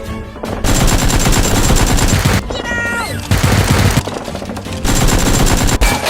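Dubbed sound-effect gunfire: rapid automatic fire in several long bursts with short breaks between them.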